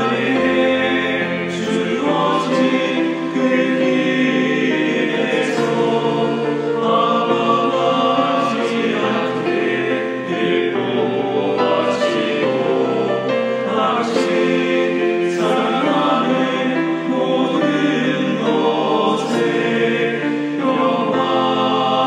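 A men's choir of priests singing a slow Korean Catholic hymn in harmony, each voice recorded separately and mixed as a virtual choir; the sung words include "방황하지 않게 늘 보호하시고" and, near the end, "평화를 주소서" ("grant us peace").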